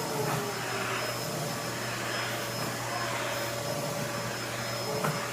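Vacuum cleaner running steadily, a rushing airflow with a constant whine, its nozzle held against a head of hair and sucking it up into spikes. A brief tick near the end.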